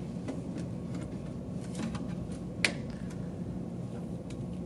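A few faint clicks of cable handling, then one sharp click a little past halfway as a power cable's plug is pushed home into the equipment chassis's power inlet. A low steady hum of room tone runs underneath.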